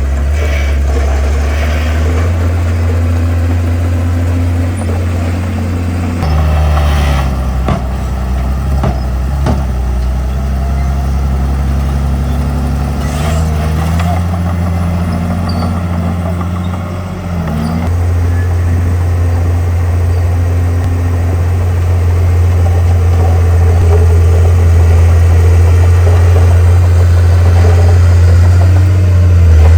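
Komatsu bulldozer's diesel engine running, its pitch dropping and coming back up a few times, with a few scattered knocks. It grows louder near the end.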